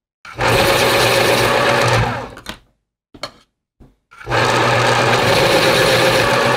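School Smart vertical electric pencil sharpener cutting colored art pencils twice: two steady runs of the motor and blades, about two seconds each, grinding the point. A few light clicks of pencils being handled sit between the two runs.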